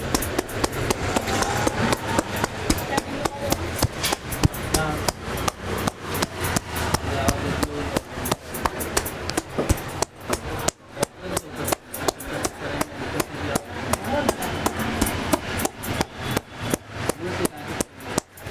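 Rapid, even slaps of a barber's hands on a customer's head and shoulders during a head massage, about three strokes a second, with a brief pause partway through.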